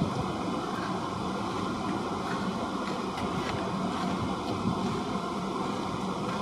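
Steady rumbling background noise with a faint hiss, unbroken throughout.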